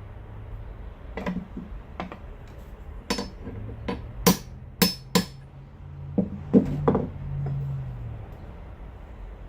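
Sharp metallic clinks and knocks, about nine at irregular spacing and loudest in the middle, from the steel parts of a Mopar power steering gearbox being struck or handled during disassembly.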